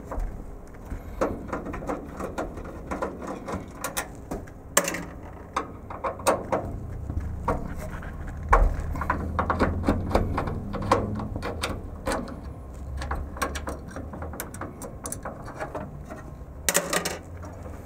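Hand screwdriver working a small screw in an aluminium bracket inside a tape-library rack: irregular clicks and scrapes of the tool and metal parts, with a louder clatter about five seconds in and again about a second before the end.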